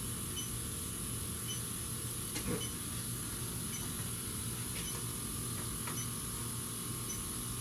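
Electronic refrigerant leak detector ticking evenly at its slow idle rate, about once a second: no refrigerant is being detected. Under it a steady hum and hiss, with a faint knock about two and a half seconds in.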